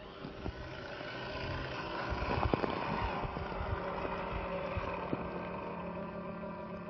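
Roc Hobby Katana 1:18 scale RC rock crawler's small electric motor and gearbox whining steadily as it crawls through a shallow stream over rock, with clicks and knocks from the tyres and chassis on the stones, the loudest about two and a half seconds in.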